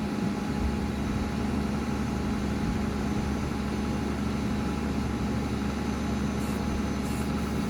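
Road-rail crane truck's engine idling with a steady low hum.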